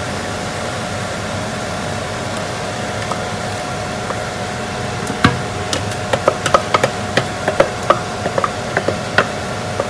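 Plastic blender jug knocked and tapped against the rim of an aluminium cooking pot to shake out the last of the blended chili paste: a run of short, sharp, uneven knocks starting about five seconds in, over a steady background hum.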